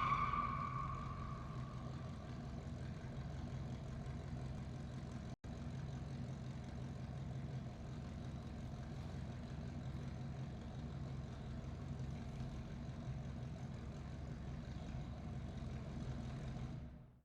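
Muscle car engine idling steadily with a low rumble in a big room, as the tail of a tyre squeal dies away over the first couple of seconds. The sound cuts out for an instant about five seconds in and fades out at the end.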